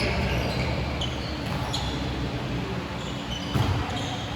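Sounds of a basketball game in an echoing gym: a ball bouncing on the court and short high squeaks over a steady murmur of the hall, with a louder thump about three and a half seconds in.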